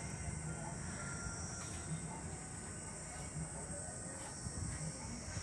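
Quiet outdoor ambience: a steady high-pitched hiss over a low rumble, with a few faint clicks.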